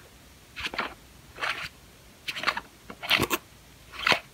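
Black plastic screw cap being twisted on a small plastic bottle: five short scraping clicks, one a little under every second.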